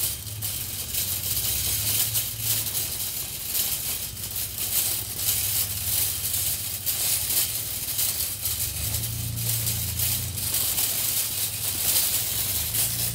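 Wire shopping cart loaded with grocery bags rolling over asphalt, its basket and wheels rattling steadily.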